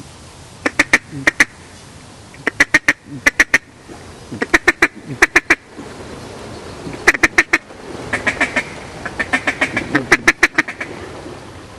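Mallard duck call blown in repeated quick series of loud, sharp quacks, three to six notes per series, to draw in ducks that are in view.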